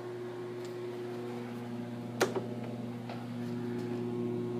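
Steady low electrical hum, with a sharp click about two seconds in and a fainter click just after it.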